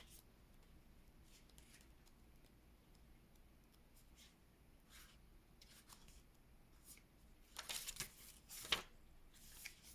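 Faint rustling of paper or cards being handled, with a cluster of louder, quick rustles about eight seconds in.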